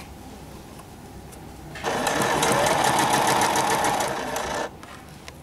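Domestic sewing machine running in one steady burst of quick, even needle strokes, stitching an invisible zipper into a skirt seam. It starts about two seconds in and stops shortly before the end.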